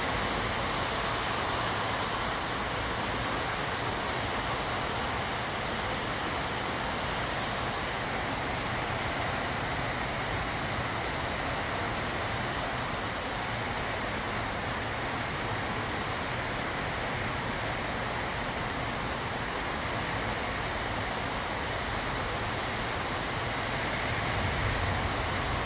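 Heavy rain pouring steadily onto wet pavement, an even hiss that holds throughout.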